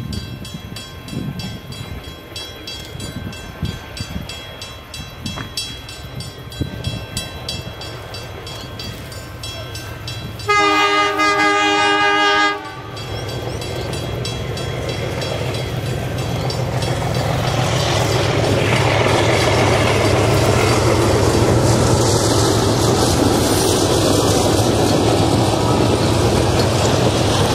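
Diesel locomotive of a heritage passenger train sounding a loud horn chord for about two seconds just before halfway. Then the engine's low running note and the rumble and clatter of the carriages' wheels grow louder as the train passes.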